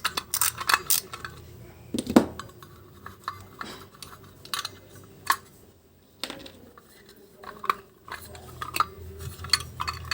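Scattered clinks and knocks of vacuum-cleaner motor parts and metal tools being handled during disassembly, a dozen or so separate sharp taps.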